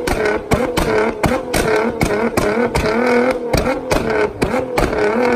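Nissan GT-R R35's twin-turbo V6 being revved up and down through an Armytrix full exhaust, with a rapid string of sharp pops and bangs, about three to four a second, from unburnt fuel igniting in the exhaust as it shoots flames. Near the end the pops thin out and the engine holds a steadier note.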